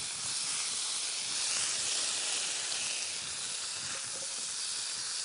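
Vegetables sizzling in olive oil in a hot frying pan, a steady hiss as the zucchini joins the par-boiled carrots, green beans, onion and garlic.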